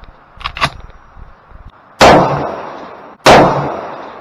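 M1A semi-automatic rifle firing 7.62x51 / .308 ammunition: two shots just over a second apart, each ringing out and dying away over about a second.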